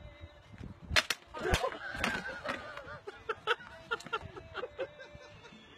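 A fall with a bicycle: several sharp cracks and clatter between about one and two seconds in, then a run of short, pitched calls that rise and fall a few times a second.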